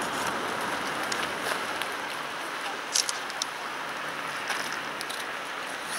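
Steady rush of distant road traffic, with a few faint clicks.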